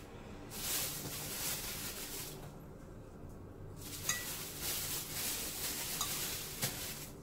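Plastic sheet crinkling and rustling as it is handled at a tortilla press, in two spells, with a couple of light clicks in the second.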